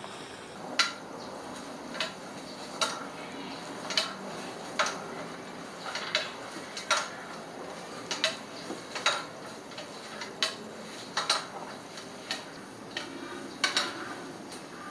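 Pro-Tools manual tube bender being worked by hand: sharp metallic ratchet clicks with a short ring, roughly one a second, as a metal tube is bent.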